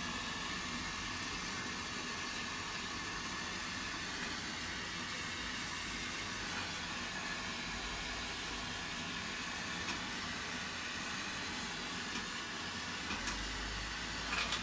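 A gas burner flame running with a steady, even hiss. A low hum joins near the end.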